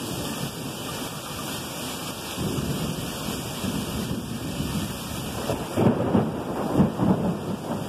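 Heavy rain pouring steadily during a thunderstorm, with thunder rumbling underneath. The rumble swells about two and a half seconds in and grows loudest in two surges near the end.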